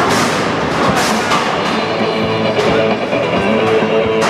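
Loud music with a drum beat.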